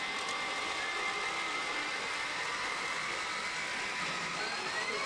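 Steady whirring din of a pachinko parlour, with the pachinko machine's reach sound effect over it: a long held electronic tone that slowly dips and rises again.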